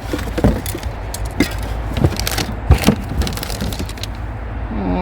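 Irregular knocks, clicks and rattles of discarded objects being handled and pulled from a pile of junk, over a steady low rumble.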